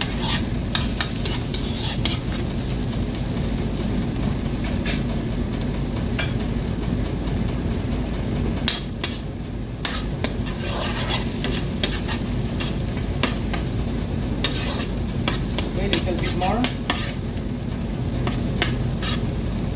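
Minced garlic sizzling in melted butter in a non-stick frying pan while a metal spoon stirs and scrapes it, with sharp clicks and taps of the spoon on the pan scattered throughout, over a steady low hum.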